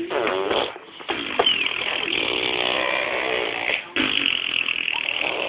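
Baby making long, drawn-out silly vocal noises in three stretches, with brief pauses about a second in and near four seconds.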